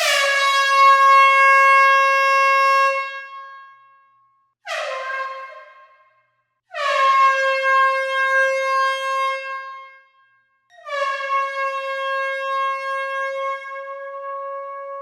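Loud air horn blasting four times: a long blast, a short one, then two more long ones, the last still sounding at the end. Each blast starts with a quick drop in pitch, then holds one steady tone.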